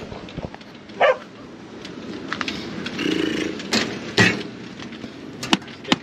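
Strong wind rushing over the microphone, broken by several sharp knocks and clatters as espresso equipment is handled.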